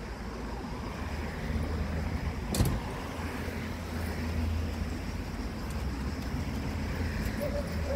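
Low, steady rumble of road traffic from cars, with a single sharp knock about two and a half seconds in.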